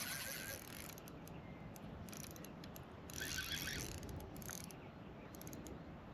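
Small 1000-size spinning reel ratcheting in two bursts of about a second, one at the start and one about three seconds in, with a few loose clicks between, as a hooked flathead is played on light line.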